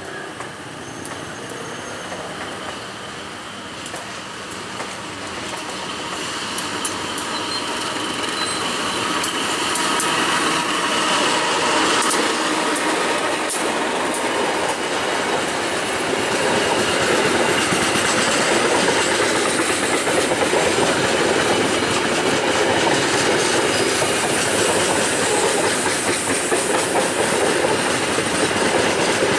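Passenger train running past, its wheels clacking over the rail joints. The sound grows louder over roughly the first ten seconds, then holds as a steady run of wheel-on-rail noise.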